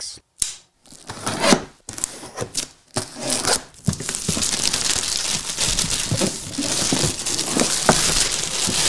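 Clear plastic shrink wrap being torn and peeled off a cardboard box by hand: a few short rustles and scrapes at first, then continuous crinkling from about four seconds in.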